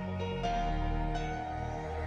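Background music with held notes over a steady low bass, the chord changing about half a second in.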